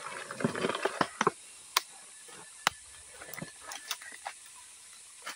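Rustling and scattered sharp clicks from a mesh net bag of live crabs being handled, with two louder clicks near the middle.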